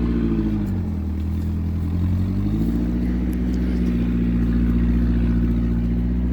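Engine of a 2009 Mitsubishi Montero Sport running. Its note drops about a second in, holds low, then climbs back about two and a half seconds in and runs steady.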